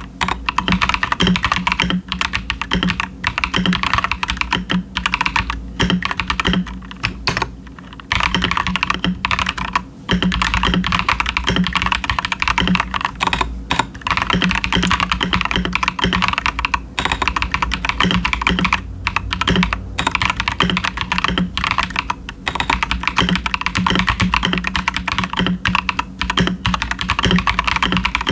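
Stock Akko 5075s mechanical keyboard with Bolsa Supply Techno Violet linear switches and doubleshot PBT ASA-profile keycaps, typed on continuously: rapid keystrokes with a few brief pauses.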